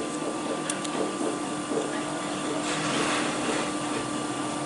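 Steady background whir with a constant hum, like a small fan or motor running, and a few faint light clicks in the first second.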